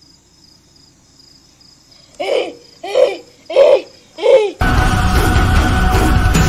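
Crickets chirping in a steady pulsing rhythm, then four short hooting calls about two seconds in, each rising and falling in pitch. Loud music cuts in abruptly near the end and is the loudest sound.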